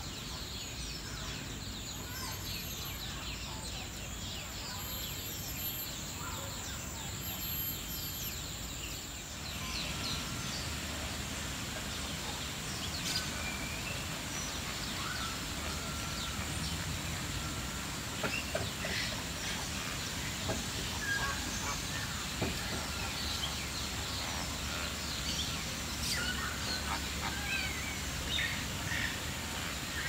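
A flock of greater flamingos calling, a busy chatter of short goose-like honks that sets in about a third of the way through and carries on. Before that, only a few faint bird calls over steady background noise.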